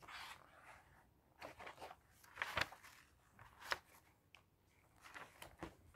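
Magazine pages being handled and turned: soft paper rustles with a few sharper flicks, the loudest about two and a half and three and a half seconds in.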